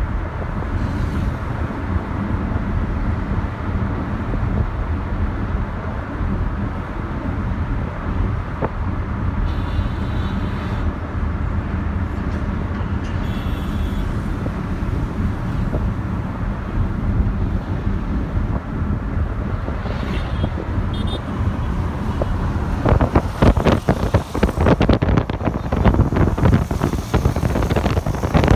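Car road noise heard from inside the cabin while driving: a steady low engine and tyre rumble, growing louder and more uneven near the end.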